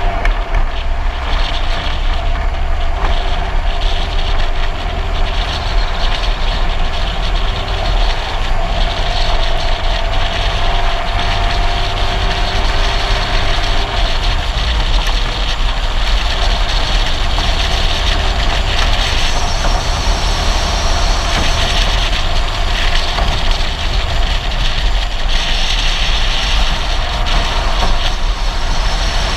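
Steady road and engine noise from a car rolling downhill at speed, with a heavy low wind rumble on the microphone and a faint tone that drifts slowly in pitch.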